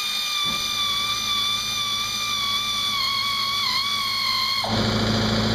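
Pneumatic air ratchet spinning out a 13 mm bolt: a steady high whine that slowly sags in pitch, then changes to a rougher, noisier sound with a low hum near the end.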